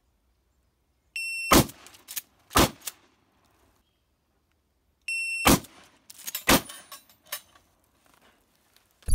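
Shot-timer beep followed by two pump-action shotgun shots about a second apart, with the pump worked and a shell loaded between them; the whole string happens twice.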